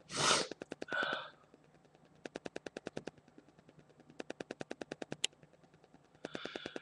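A man breathing hard between sneezes of a sneezing fit: a sharp breath and a sigh in the first second, then a breath drawn in near the end as the next sneeze builds. Under it, a rapid clicking of about ten clicks a second comes and goes in short runs.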